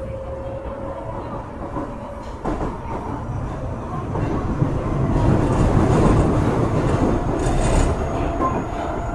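Osaka Metro Series 23 subway car, refurbished with a Hitachi IGBT inverter, running underground as heard inside the car. It is a steady rumble of wheels on rail with a whine from the motors and rail-joint clacks. The run grows louder past the middle, and a high whine comes in near the end.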